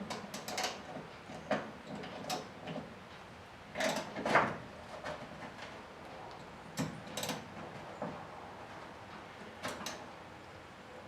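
Scattered clicks and clunks from work on a GMC squarebody truck's door and hinge hardware, several coming in pairs about half a second apart.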